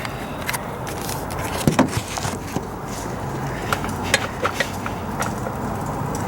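Irregular metallic clicks and clinks of a hand wrench working an 8mm bolt on car battery hardware, over a low steady hum.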